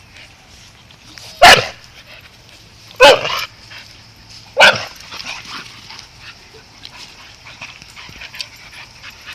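A dog barking three times, about a second and a half apart, during rough play-fighting between two dogs; quieter small sounds follow.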